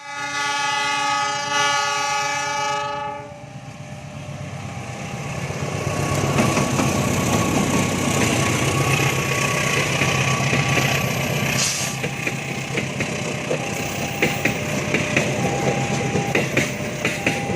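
Train horn blowing one steady chord for about three seconds. Then a passing train builds up, its rumble growing loud, with a rapid run of wheel clicks over the rail joints.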